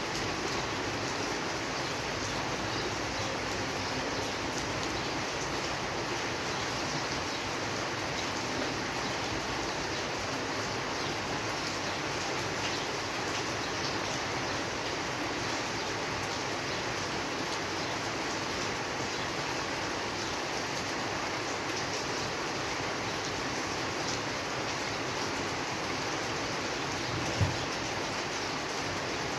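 Steady rain falling, an even hiss without let-up, with one brief low thump near the end.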